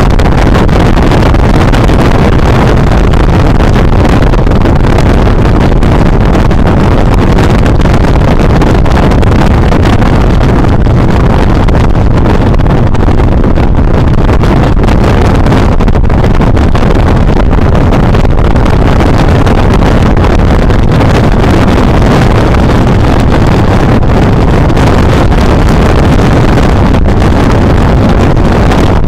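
Wind blasting over a helmet-mounted microphone on a motorcycle riding at road speed, mixed with the bike's running and road noise: a loud, steady roar.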